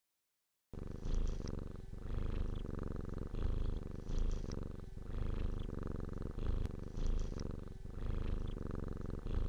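Domestic cat purring, starting about a second in. The purr swells and dips with each breath, about every one and a half seconds.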